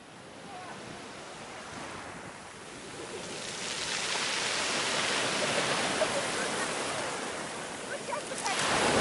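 Black Sea surf breaking and washing up a pebble beach: a steady wash of waves that fades in at the start and grows louder from about three seconds in.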